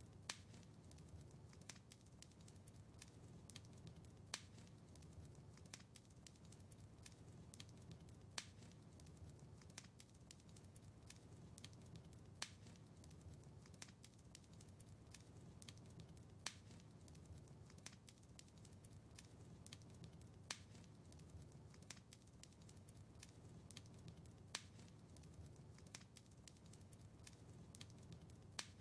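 Wood fire crackling in a fireplace: many small sharp pops and snaps over a low, steady rumble, with a louder pop about every four seconds.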